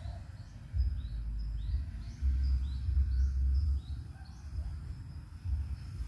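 A bird calling a quick series of short, high, rising notes, about a dozen over a few seconds, over gusts of wind rumbling on the phone's microphone.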